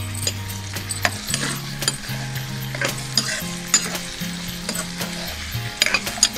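Diced potatoes, carrots and onions sizzling as they fry in oil in a nonstick kadai, stirred with a steel spoon that clicks and scrapes against the pan again and again.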